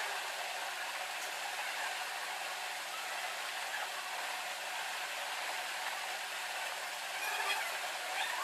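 Steady hissing background noise with a faint low hum.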